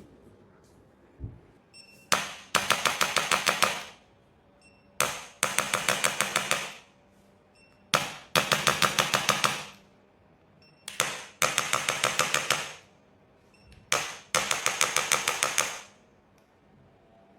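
Electric chiropractic adjusting instrument firing five times. Each time there is a short high beep, a click, then a rapid train of taps at about ten a second lasting about a second and a half.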